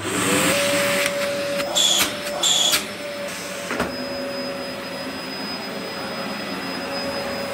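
Brand-new Dyson DC04 Absolute Plus upright vacuum cleaner switched on: its motor spins up with a short rising whine, then runs at a steady hum as it is pushed over carpet. There are two brief higher hisses about two seconds in and a single knock just before the four-second mark.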